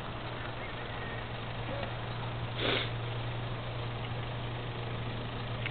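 Pickup truck engine idling with a steady low hum, and a short hiss about halfway through.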